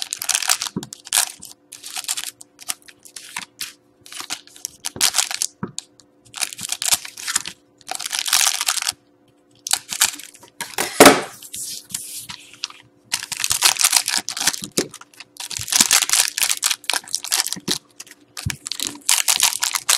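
Scissors snipping open foil trading-card packs and the foil wrappers crinkling and tearing as the cards are pulled out, in repeated bursts with short pauses. There is a sharp click about eleven seconds in, over a faint steady hum.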